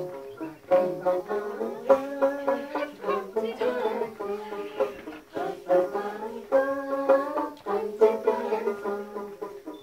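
Music played on a plucked string instrument, a run of changing notes.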